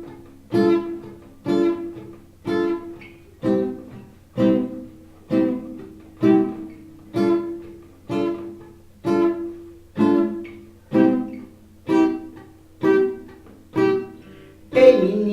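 Instrumental song intro: a guitar strikes a single chord about once a second, each one ringing and fading before the next. Near the end fuller, louder music comes in.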